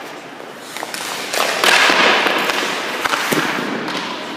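Hockey skate blades scraping and carving across rink ice, a loud hiss that swells about a second and a half in and then fades, with a few sharp knocks of stick and puck.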